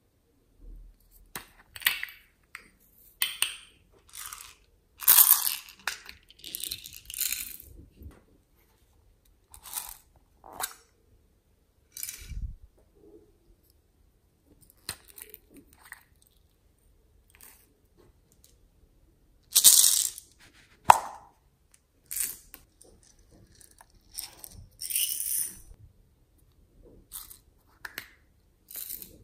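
Small plastic novelty containers handled and opened by hand: irregular clicks, taps and short rattling scrapes, with quiet gaps between them and a few louder strokes.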